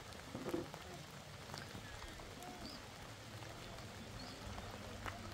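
Light rain pattering steadily, with a few faint short calls and small knocks over it.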